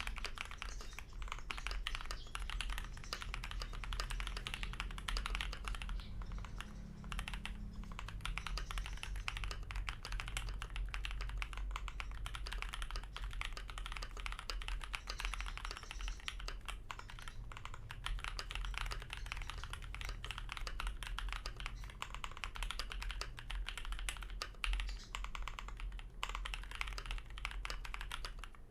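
Continuous typing on a custom mechanical keyboard: lubed AEboard Naevy tactile switches on a brass plate in a KBD67 MkII aluminium case, with PBT keycaps. Dense, steady keystrokes over a faint low background hum.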